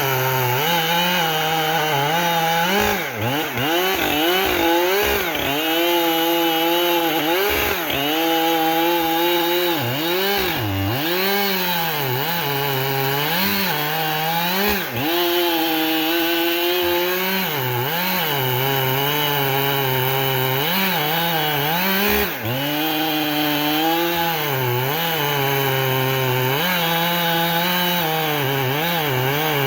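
Chainsaw cutting into a tree under load, its engine pitch sagging and recovering over and over as the chain bites. The revs drop briefly a few times, about 3, 15 and 22 seconds in.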